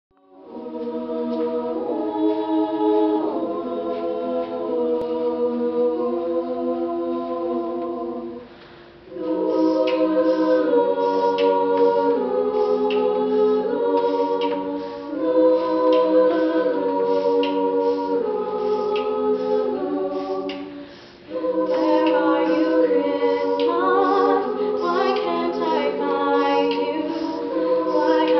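Women's a cappella group singing in close harmony, holding sustained chords, with a solo voice on microphone over them. The singing breaks off briefly about 8 seconds in and again near 21 seconds.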